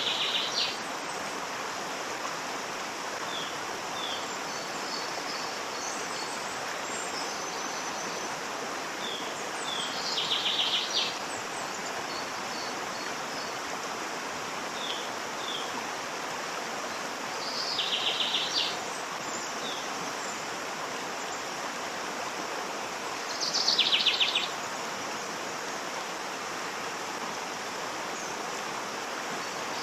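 Waterfall rushing steadily, with a bird giving a short buzzy trill four times, several seconds apart, and a few faint chirps between.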